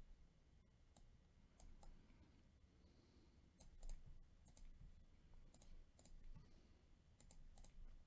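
Faint, scattered computer mouse clicks, several in quick pairs, against near silence.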